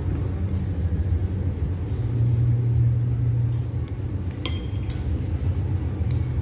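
Cutlery clinking: a sharp, ringing metallic clink a little past four seconds in, then lighter clicks, over a steady low hum.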